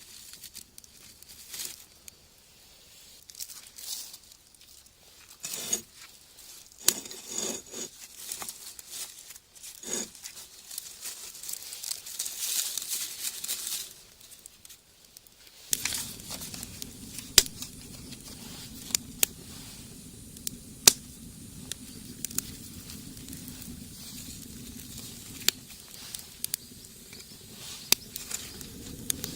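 Paper and kindling crumpling and snapping. About halfway through, a wood fire in a rocket stove takes over, burning with a steady low rush and frequent sharp crackling pops.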